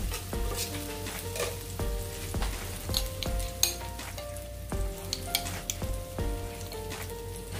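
Sliced shallots sizzling in hot oil in a pot, stirred with a spoon that clicks and scrapes against the pot now and then, while they fry until fragrant. Light background music with short melodic notes plays underneath.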